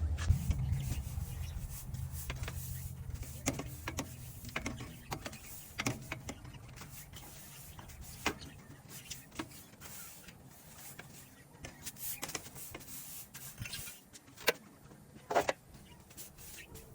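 Scattered light clicks and taps from bird cage parts being handled during cleaning, two louder ones near the end, over a low hum that fades out in the first few seconds.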